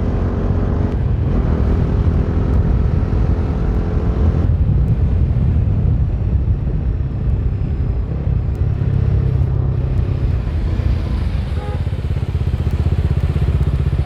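Bajaj Dominar 250's single-cylinder engine running as the motorcycle rides along, heard from on the bike. The engine note is strong for the first few seconds, then eases about four seconds in, and the low rumble carries on.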